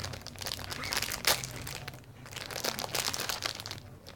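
Plastic packaging crinkling and crackling as it is handled, in a run of irregular crackles with one sharper snap about a second in.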